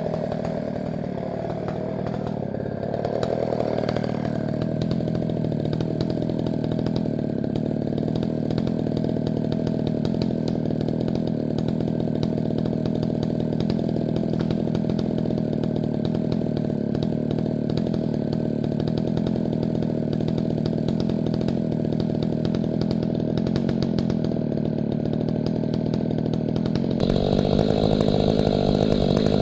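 Chainsaw with a square-ground chain running at high speed. Its pitch wavers for the first few seconds, then holds steady, and it turns suddenly louder and harsher near the end.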